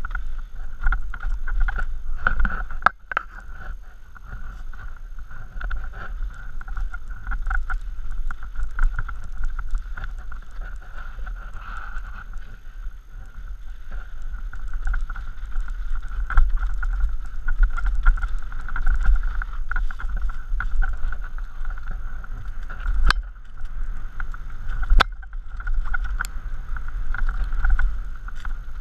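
Mountain bike descending rocky dirt singletrack, heard from a helmet camera: a steady rumble of wind buffeting the microphone and tyres rolling over dirt and stones. A few sharp knocks from bumps and the bike's parts, two of them late on.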